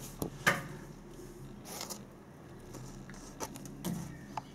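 Hands working at the washing machine's fittings while checking for leaks, giving a handful of short, scattered clicks and knocks.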